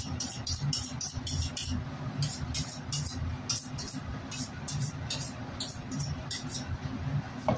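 Background music with a steady quick beat, a crisp high tick about four times a second over a low rumble.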